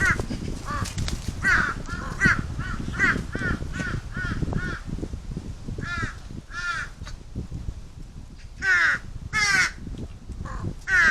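Large-billed crows cawing: a quick run of about eight short caws, a pause, then two long, loud caws about nine seconds in and another near the end. Strong wind rumbles on the microphone throughout.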